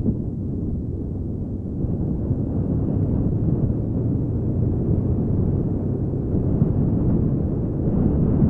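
Honda Africa Twin XRV750's V-twin engine running steadily on the move, mixed with wind rumble on the microphone; the sound is muffled and gets a little louder about two seconds in.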